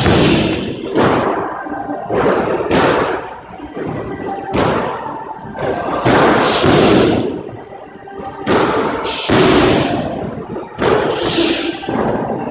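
A run of heavy thuds and slams, each ringing out in the hard, echoing room of a squash court, coming irregularly about every one to two seconds, with several strong pairs close together.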